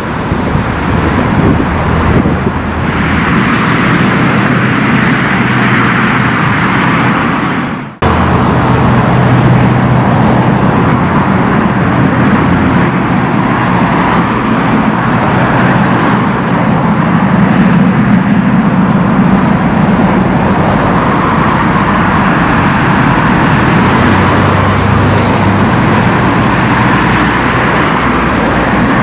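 Double-deck electric passenger train running away along the track, then, after a sudden cut, a VL80S twin-section AC electric locomotive hauling a freight train approaching with a steady rumble and a low hum.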